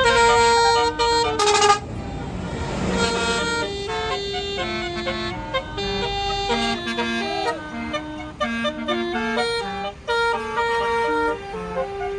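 Tour bus Basuri telolet horn playing a quick tune of rapidly changing notes, over the rumble of the bus's engine, which drops away about six and a half seconds in. A short hiss sounds about one and a half seconds in.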